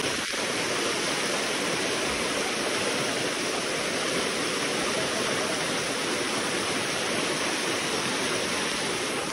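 Fast-flowing river rushing in turbulent white water: a steady, even rush of water noise.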